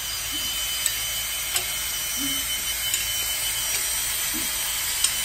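Cordless drill running steadily under load, spinning a Chrysler 440 V8's oil pump through a priming rod to pre-oil the engine, with a few light clicks. Oil is being pumped through the galleries up to the rocker shafts.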